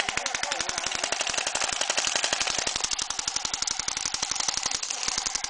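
Airsoft guns firing on full auto: a fast, even stream of sharp clicks, a dozen or more a second, with no break.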